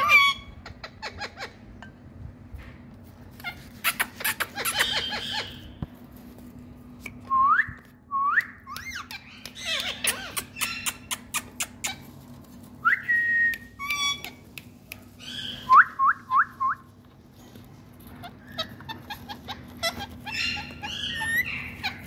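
Rose-ringed (Indian ringneck) parakeets calling in scattered bouts: short rising whistles, harsher squawks and runs of sharp clicks.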